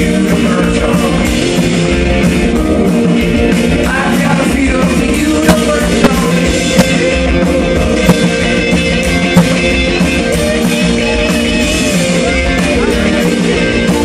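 Live rock band playing with electric guitars, upright bass and drum kit, and a voice singing. A few sharp drum hits stand out loudly in the middle.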